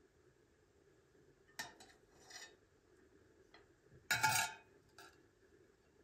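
Metal serving spoon clinking and scraping against china plates as rice is scooped and served: a few short clinks and scrapes, the loudest clatter about four seconds in.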